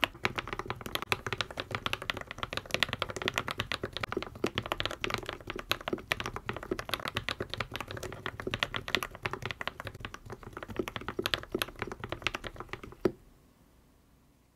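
Continuous fast typing on a mechanical keyboard fitted with KTT linear switches, Sea Salt Lemon and lubed Kang White V3, a steady stream of keystroke clacks. The Sea Salt Lemons have a slightly higher pitch. The typing stops with a last sharp keystroke about thirteen seconds in.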